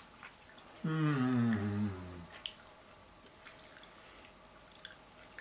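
A man's long closed-mouth "mmm" of enjoyment, about a second and a half, sliding down in pitch, while he tastes a bite of barbecued pork rib. After it come faint clicks of chewing.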